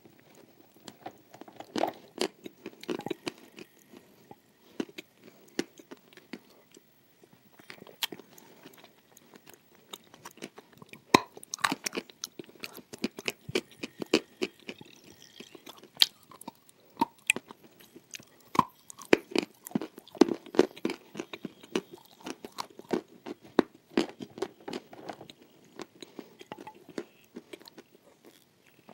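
A person chewing crunchy pieces close to a clip-on microphone, with sharp, irregular crunches coming thick and fast.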